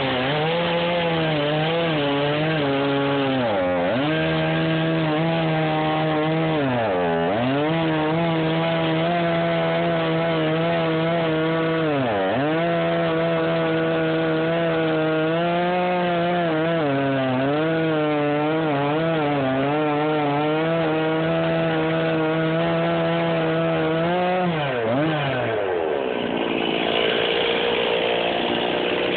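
Stihl two-stroke chainsaw running at full throttle, cutting down through a log; its engine note dips sharply several times as the chain loads up in the wood. Near the end the pitch falls away and the sound changes as the saw comes out of the cut.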